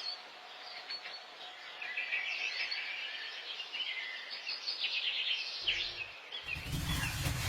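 Small birds chirping and twittering over faint outdoor background noise, with a broad rushing noise rising near the end.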